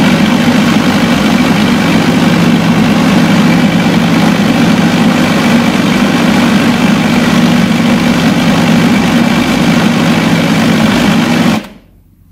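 Countertop blender motor running steadily at speed, grinding boiled chicken wings, orzo and chicken broth into a thick paste. It cuts off near the end.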